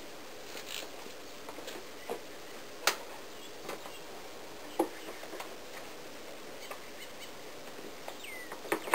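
A handful of sharp clicks and taps from the plastic windshield cowl panel being handled and fitted into place, the loudest about three and five seconds in, over a steady background hiss.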